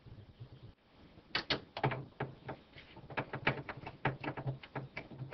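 Irregular rapid clicks, taps and rattles of hands working on metal parts inside a PC case, fastening a graphics card's mounting bracket in place.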